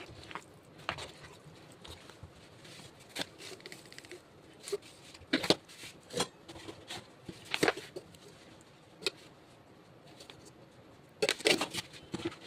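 Irregular light clicks and knocks of objects being handled, with a quick cluster of them near the end.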